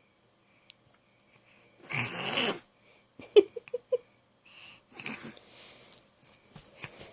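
Imitation snoring: two loud, rasping snore-like breaths, about two seconds in and again about five seconds in, with a few short squeaky sounds between them.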